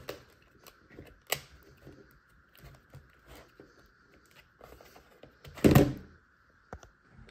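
Plastic clicks and scrapes of a Lenovo ThinkPad T430 battery being unlatched and slid out of its bay, with a louder knock about six seconds in as the battery comes free.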